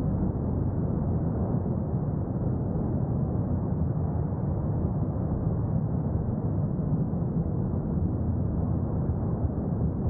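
The La Palma volcano erupting: a steady, deep rumble with nothing high in it and no separate blasts.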